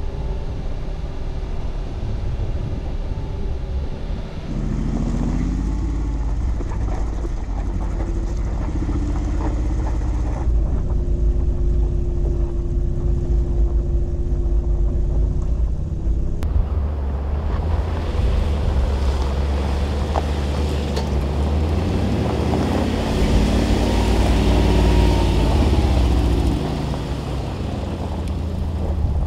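Mercedes-Benz G-Class engine driving off-road, its note rising and falling with the throttle. The sound changes abruptly several times, and a rushing noise runs through the second half.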